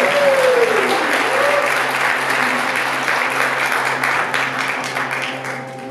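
Audience applauding, with a couple of rising-and-falling whoops in the first two seconds; the clapping thins and dies away near the end.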